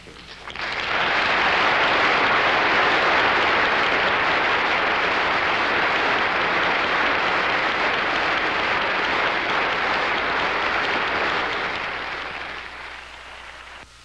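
Lecture-hall audience applauding, a dense steady clapping that starts about half a second in and dies away near the end.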